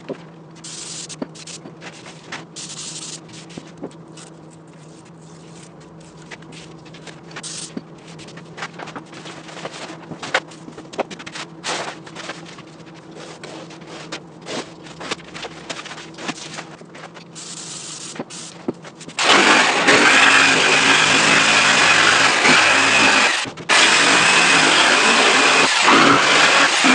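Short hisses from an aerosol spray can and paper patterns rustling over a steady low shop hum, then a handheld power tool starts about two-thirds of the way in and runs loudly on the plywood, with one brief stop.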